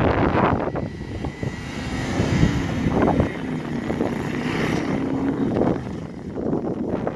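BMW X5 SUV's engine running hard as it drives through soft sand, its tyres churning and spraying sand, with the level rising and falling as it slides past.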